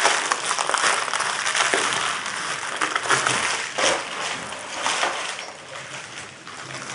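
Plastic and paper packaging crinkling and rustling as the box contents are handled, with many small clicks and taps. It thins out over the last couple of seconds.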